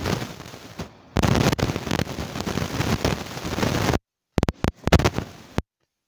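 Strong thunderstorm wind buffeting the microphone: a loud rushing noise that starts abruptly about a second in, then breaks up into short bursts and cuts off to silence near the end.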